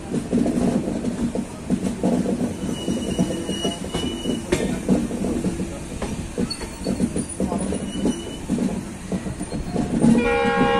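Passenger coaches of an Indian Railways express running over the track, with steady wheel rumble and rail-joint clatter heard from an open coach door. Brief high-pitched wheel squeals come about three seconds in and again near eight seconds on the curve. Near the end the locomotive's horn starts to sound.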